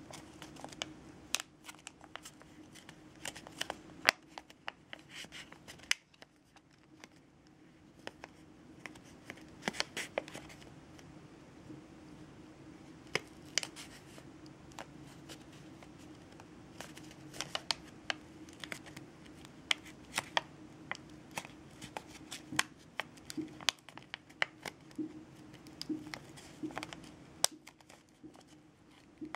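Shiny iridescent origami paper crinkling and crackling as fingers press and shape its folds, with irregular sharp crackles throughout. A faint steady hum runs underneath.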